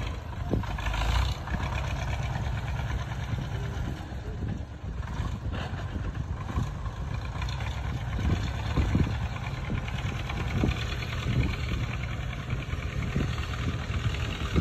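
Heavy engines of a tractor and a dump truck running steadily with a low rumble, as the truck tips its load of soil. A series of short knocks comes in the second half.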